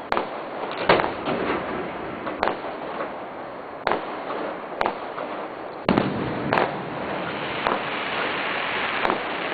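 Fireworks display: aerial shells bursting in a series of sharp bangs, about one every second, with the loudest bangs about a second in and again about six seconds in. Continuous crackling runs between the bangs and grows denser after about six seconds.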